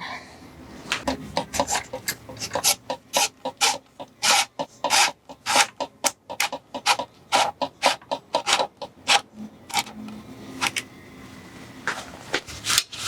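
Repeated short rasping, rubbing strokes, a few a second and irregular, thinning out for a moment about ten seconds in.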